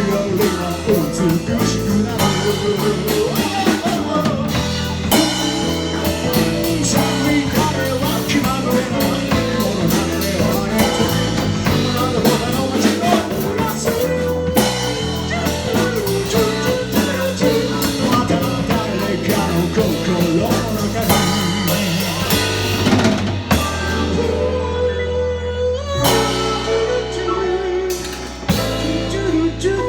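A rock band playing an instrumental passage of a song, with drum kit and guitar. The cymbals drop out for a couple of seconds at a time in the last third.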